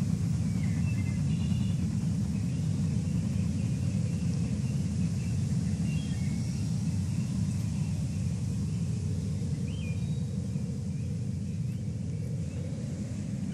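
Steady low rumble of outdoor ambience with a soft hiss above it, and a few brief high chirps scattered through.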